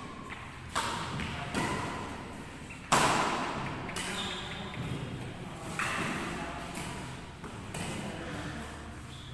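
Badminton rackets striking a shuttlecock during a rally, a string of sharp hits about one to two seconds apart, with the loudest about three seconds in. Each hit echoes in a large hall.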